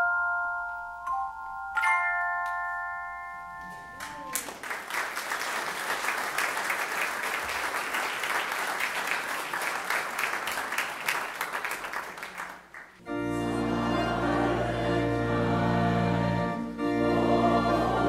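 Handchimes ring the last chords of a piece and fade out over about four seconds. Then applause follows for about eight seconds, and a church organ comes in with sustained chords and a deep bass.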